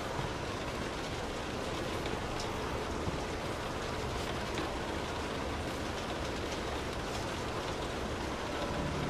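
Steady rain drumming on a car's roof and windows, heard from inside the cabin, with scattered individual drops ticking on the body.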